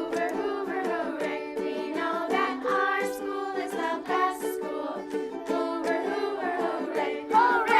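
A school song sung by voices over a strummed stringed instrument, which keeps an even strumming beat. Near the end one voice rises louder and slides up and down.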